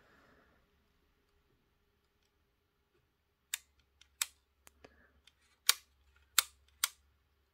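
Plastic parts at the end of a model railway passenger coach clicking as fingers press and work them: about six sharp clicks in the second half.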